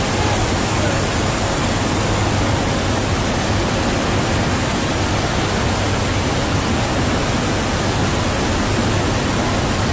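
Steady rushing wind and turboprop engine noise inside a C-130J Super Hercules cargo hold with the side paratroop door open in flight, over a steady low drone.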